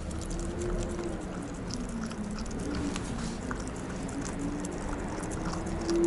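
A dog eating soft chopped fried egg from a glass bowl: wet chewing and licking with many small, irregular clicks.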